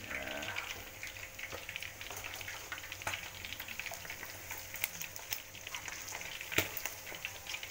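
Chicken pieces deep-frying in hot oil in an aluminium wok, being fried until dry and crisp: a steady sizzle thick with small crackles, with two louder pops in the second half.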